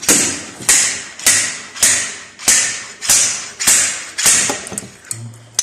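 Hammer striking metal: about eight evenly spaced, sharp blows, roughly one every 0.6 seconds, each ringing briefly. The blows stop about four and a half seconds in.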